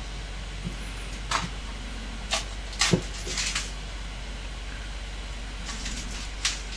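Plastic wrap being peeled off a figure's box: a few short, sharp crackles and rustles spread over several seconds.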